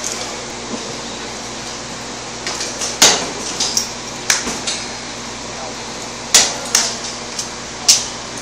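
A metal stall gate clanking in a string of irregular sharp knocks as a horse strikes and knocks at it, the loudest about three and six seconds in.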